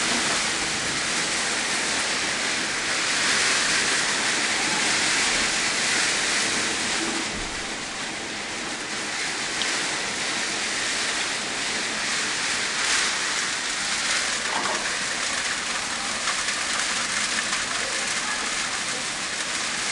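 Heavy storm rain mixed with hail pouring down steadily, heard from indoors behind a window pane.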